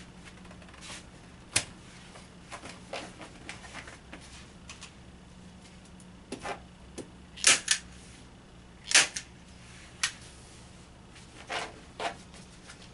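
Staple gun driving staples through raw canvas into wooden stretcher bars: several sharp snaps at irregular intervals, some in close pairs. Softer rustling and tapping of the canvas and frame come between them.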